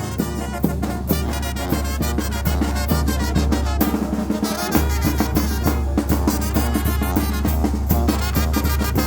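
Traditional Mixtec brass band (banda mixteca) playing, brass and saxophone melody over a steady beat of drum strikes, with a low bass line that drops out briefly about four seconds in.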